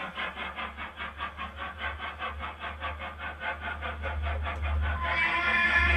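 A model train running on the layout, with an even beat of about four to five pulses a second over a low hum that grows louder toward the end. A brighter, higher tone joins about five seconds in.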